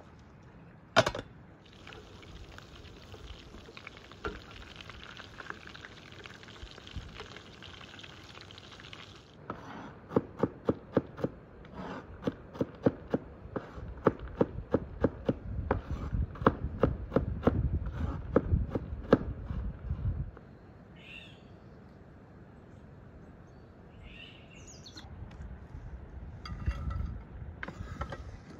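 A steady hiss for several seconds, then a knife chopping walnut kernels on a wooden board in quick, even knocks for about ten seconds. Faint bird chirps follow.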